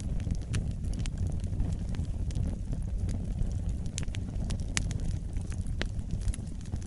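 Wood fire crackling in a fireplace: a steady low rumble of the flames with irregular sharp pops and snaps.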